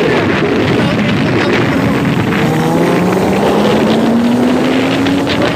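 Wind buffeting the microphone on a moving motorcycle, over road noise. From about two seconds in, an engine revs steadily up in pitch for about three seconds as it accelerates.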